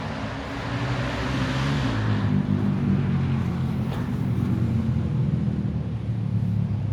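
An engine running steadily with a low, even hum, with a rushing noise over it for the first couple of seconds.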